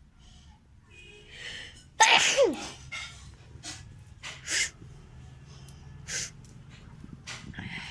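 A person sneezes loudly once, about two seconds in, the sneeze's voiced part dropping in pitch. It is followed by several shorter breathy bursts.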